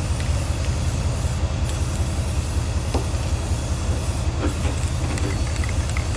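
A motor runs steadily with a fast, even low pulsing, over a continuous hiss.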